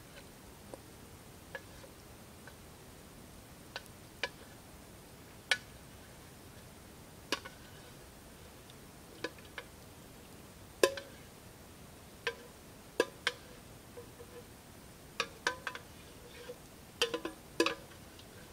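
Wooden utensil knocking and scraping against a metal frying pan and pot as food is stirred: irregular sharp taps, some with a short ring, coming closer together near the end.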